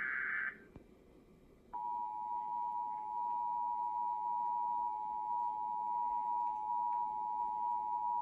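Emergency Alert System test: the last screech of the SAME digital header burst ends about half a second in. After a second's pause the EAS attention signal starts, a steady two-note tone held without change, which announces the tornado watch message.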